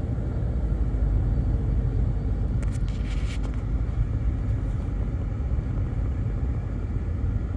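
Car interior road and engine noise while driving: a steady low rumble, with a brief hiss about three seconds in.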